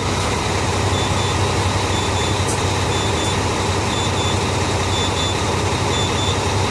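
Truck's diesel engine idling steadily at about 500 rpm, heard from inside the cab, with a faint high beep repeating about once a second.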